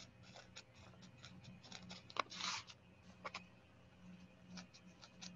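A felting needle stabbing wool roving down into a foam pad: faint, short pokes, several a second at an uneven pace, with a brief louder rustle about two and a half seconds in.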